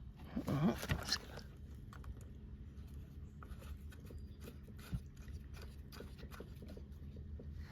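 Light handling noises: scattered small clicks and scrapes over a low hum, with a brief squeaky, bending sound near the start and one sharper click about five seconds in.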